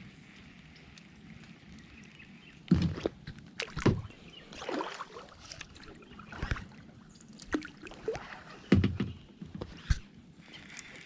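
Irregular knocks against a kayak and sloshing water, about half a dozen sharp thumps over several seconds.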